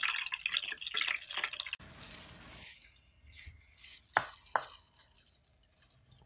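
Hot oil crackling and spitting in a frying pan for a little under two seconds. After an abrupt change, a knife chops twice through crispy-skinned roast pork onto a plastic cutting board, about four seconds in.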